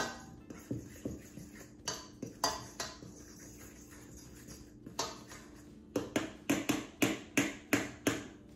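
A metal fork clinking and scraping against a stainless steel mixing bowl while stirring a powdered-sugar and cocoa icing. The strokes are scattered at first, then come in a quick run of about eight in the last few seconds.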